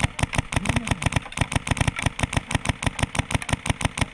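Airsoft gun firing a long full-auto burst: a steady, even rattle of sharp shots, about a dozen a second.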